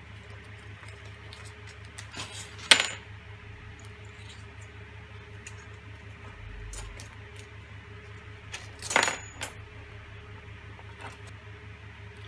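Two metal washers clinking as they are dropped onto threaded rods, each a single sharp ringing clink, about six seconds apart, over a faint steady hum.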